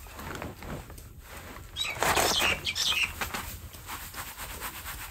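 Granular wheat bran pouring from a sack into a plastic tub: a dry rushing hiss of grains that grows louder about two seconds in, then eases. Birds chirp briefly alongside.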